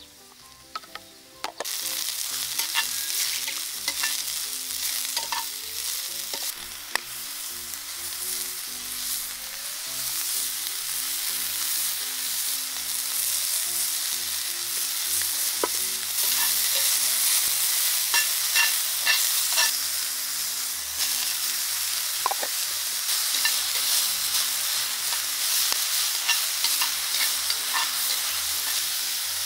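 Shimeji mushrooms, and later broccoli, sizzling in hot oil in a cast-iron skillet over a wood fire. The sizzle starts abruptly about a second and a half in and grows a little louder partway through, with scattered clicks of utensils stirring the pan.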